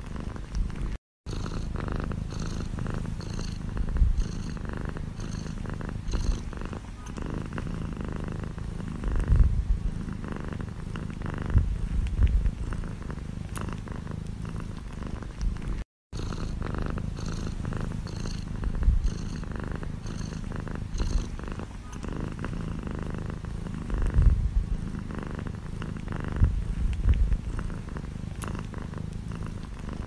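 Domestic cat purring: a steady low rumble with occasional louder swells. It breaks off with brief silent gaps about a second in and again halfway through, where the recording loops and repeats.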